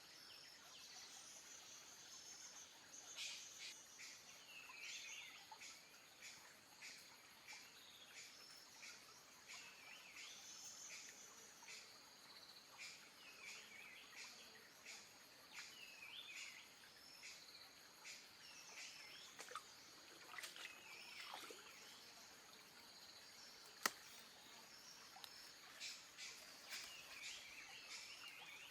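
Faint forest ambience: a bird calling over and over in short swooping notes, over a steady high insect drone. One sharp click stands out near the end.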